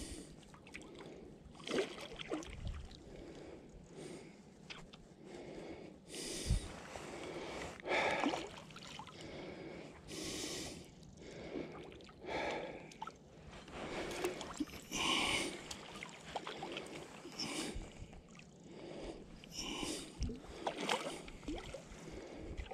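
A man's heavy breathing and gasps, a short breath every second or two, from the strain of playing a hard-fighting fish on a fly rod.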